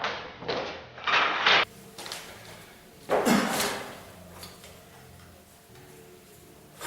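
Metal telescoping arms and legs of a paintless dent repair stand being slid in and out and set in place: a few separate scraping, sliding noises, the loudest about three seconds in.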